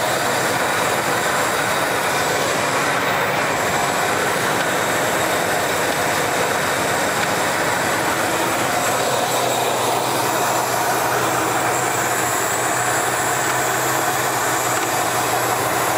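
Ford 400 V8 of a 1977 Lincoln Continental running steadily under an open hood, with an occasional tap that is thought to be the cooling fan hitting its shroud.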